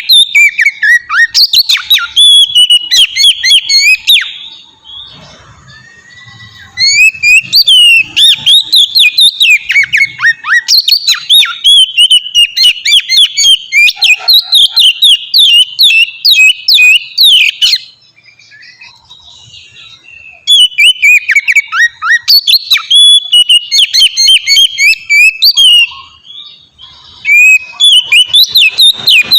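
Oriental magpie-robin (kacer) singing loudly in a rapid run of whistled notes and quick pitch sweeps. The song comes in four long bursts with short pauses between.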